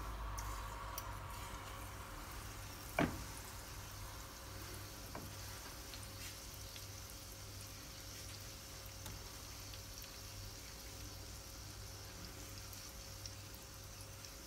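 Battered chicken nuggets sizzling faintly in hot oil in a frying pan, cooking on low heat. A sharp knock about three seconds in is the loudest sound, and a softer one follows about two seconds later.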